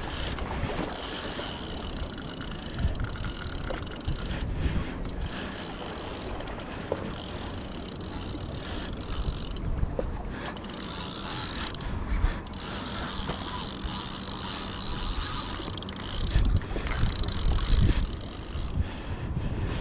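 Daiwa spinning reel being cranked against a big hooked crevalle jack, its gears and line whirring in spells of a few seconds with short pauses between. Wind rumbles on the microphone.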